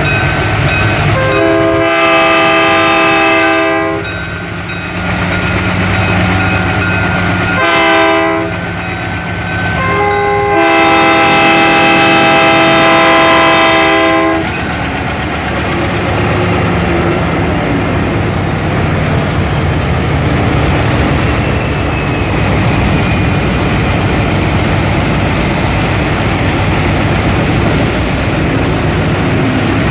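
Diesel locomotive horn sounding three times, long, short, long, over the steady drone of several ALCO 251 diesel engines working under load to start a heavy freight train. After the last horn blast the engines run on with a continuous rumble.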